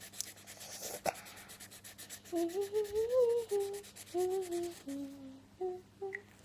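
A child humming a wandering tune over the scratchy back-and-forth rubbing of a Sharpie marker colouring in on paper. The rapid marker strokes are clearest in the first two seconds, and the humming starts about two seconds in.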